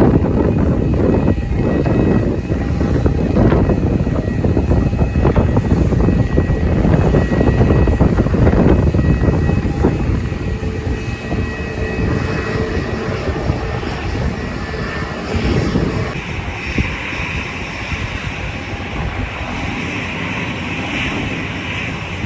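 Airbus A320neo's CFM LEAP-1A turbofan engines running with a deep rumble and steady high whining tones. The rumble gradually fades over the second half.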